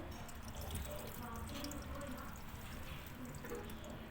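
Water dripping and trickling, with faint voices in the background.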